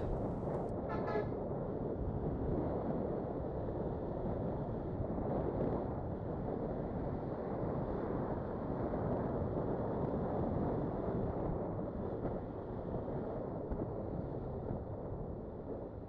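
Steady road and wind noise on a moving motorcycle, with a brief horn-like toot about a second in.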